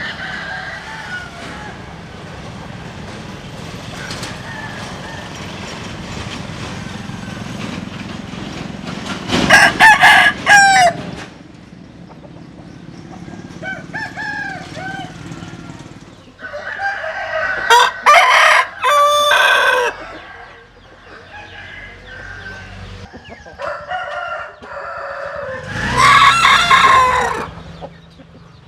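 Rooster crowing: three loud crows spaced several seconds apart, with quieter short calls between them.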